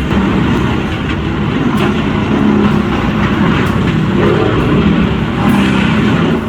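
Heavy machinery engine running steadily, with a few sharp knocks over it.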